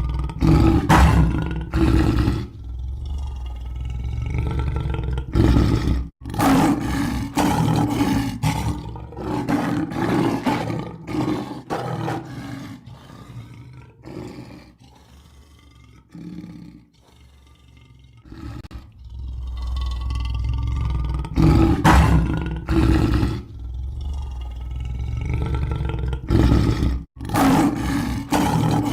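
Lion roaring in a looped sound-effect recording. Loud, deep roars come in repeated bouts. The sound cuts off abruptly about six seconds in and again near the end, and it goes quieter for a while in the middle.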